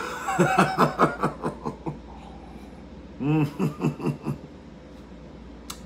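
A man laughing in a quick run of short pulses for about two seconds, then a second, shorter laugh about three seconds in. A single sharp click near the end.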